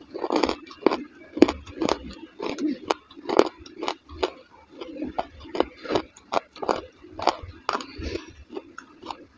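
Wet chewing of soft, yogurt-soaked dahi vada: a run of sharp mouth clicks and lip smacks, about two a second.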